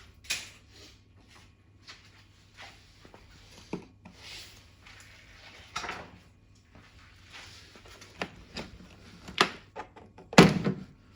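Scattered clicks, scrapes and knocks of tools and hands on plastic as the charging socket flap cover is worked loose, with a louder knock about ten seconds in.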